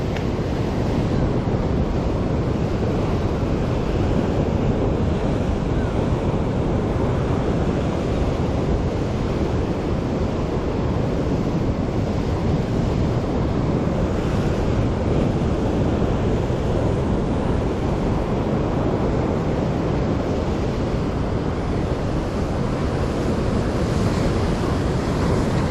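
Rough sea surf breaking and washing against shore rocks, a steady rush of water, with wind rumbling on the microphone.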